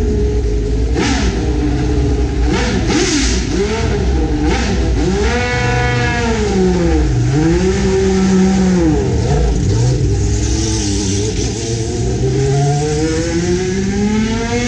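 Racing car engines running hard on a circuit, their pitch dropping and rising repeatedly as they shift gears and brake, then one engine climbing steadily in revs toward the end.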